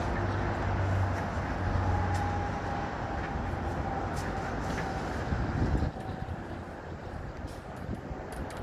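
Vehicle engine rumble and traffic noise over a steady wash of noise. The low hum drops away about six seconds in, leaving the wash quieter.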